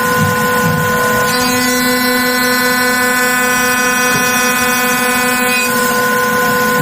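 CNC milling machine face-milling a copper part with a 100 mm fly cutter: a steady whine of several pitched tones. A fuller, higher ringing whine joins about a second in and drops away about a second before the end as the cutter passes across the copper face.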